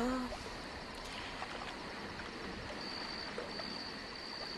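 Steady, even background hiss with no speech. A thin, high, steady tone comes in about three seconds in.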